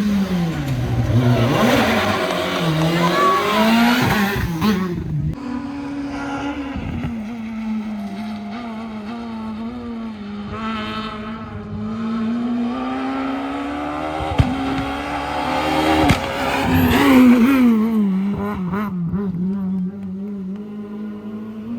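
Rally car engine revving hard, its pitch rising and falling with throttle and gear changes, loudest about seventeen seconds in.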